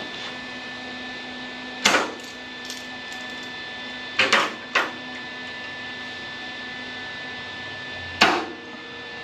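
Short bursts of welding on the Range Rover Classic's sheet-steel floor pan: four brief bursts, two of them close together in the middle, laying plug welds in drilled holes over a steady hum.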